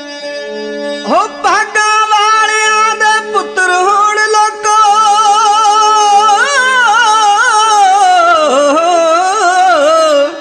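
Punjabi dhadi music: a single melodic line slides up about a second in, then holds long, wavering, bending notes over a steady low drone.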